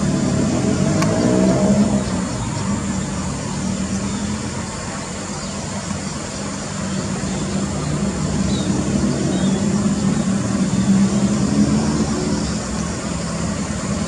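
Motor vehicle engine running with a steady hum. Its pitch rises and it grows louder twice, near the start and again about ten seconds in.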